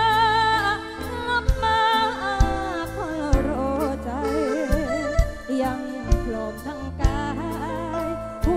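Live concert music: a female singer singing with heavy vibrato over a band with a steady kick-drum beat, a little under one beat a second.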